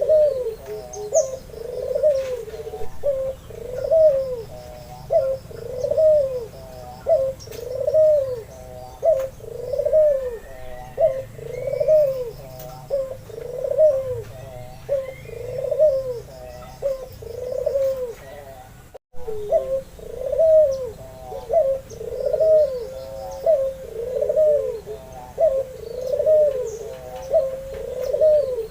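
White albino ringneck (Barbary) dove cooing over and over, each coo a rising-and-falling phrase about once a second, broken by a brief dropout partway through. Faint chirps from small birds sound in the background.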